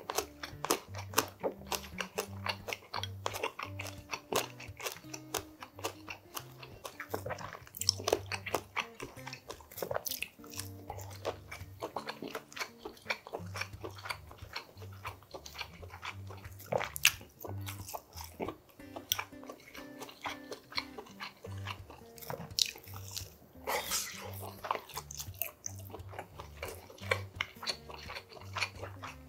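Close-miked eating of seafood udon with maesaengi seaweed: steady chewing with many wet mouth clicks and smacks, irregular and never pausing for long.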